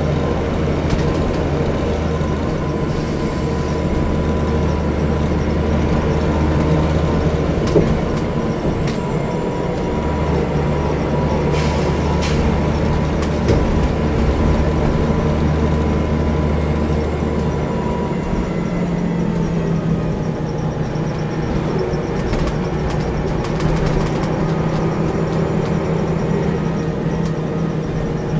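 Diesel engine and running gear of a single-deck city bus heard from inside the passenger saloon while it drives. A steady low drone changes note a few seconds in and again about two-thirds of the way through, with scattered rattles and clicks from the interior fittings.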